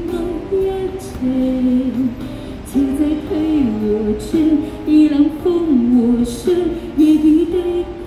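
A woman singing a slow Chinese-language pop song live into a handheld microphone, holding and gliding between long notes.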